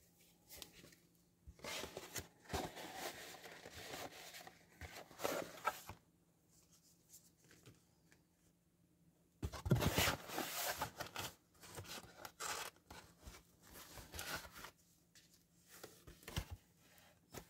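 Paper and plastic packaging being handled: rustling and crinkling in two longer bursts, then a few light clicks and taps as items are set down on the table.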